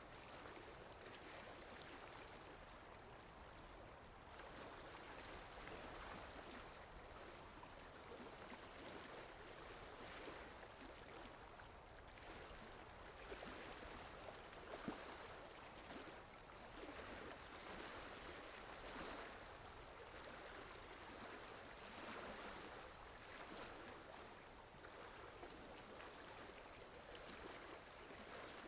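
Soft, steady rainfall, its hiss swelling and easing every few seconds, with a couple of brief sharper taps about halfway through.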